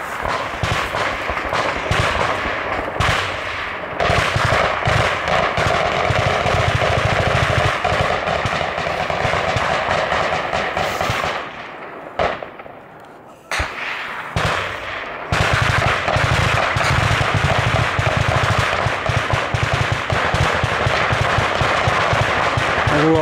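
Heavy automatic-weapons fire in rapid, almost unbroken bursts, dying down for a couple of seconds about halfway through and then picking up again.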